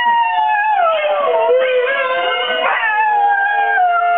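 Siberian husky howling along with a recording of wolves howling played through a laptop's speakers. Several howls overlap at different pitches, each rising steeply and then sliding slowly down.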